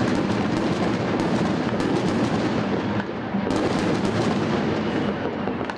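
Many sharp bangs and pops from stun grenades going off, packed close together over a continuous noisy din.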